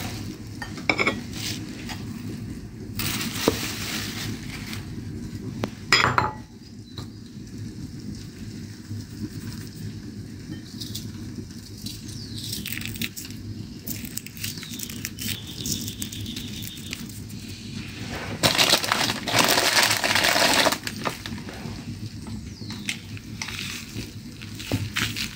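Thin plastic bag crinkling and rustling as flour is seasoned in it, with kitchen containers and utensils clinking and knocking as they are handled. A sharp knock comes about six seconds in, and a longer spell of loud rustling about eighteen seconds in.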